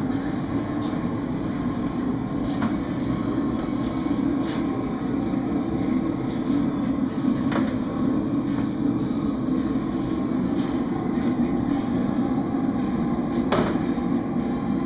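Propane-fired metal-melting furnace and its blower running with a steady rushing noise, heating aluminium for a casting. A few light knocks sound over it.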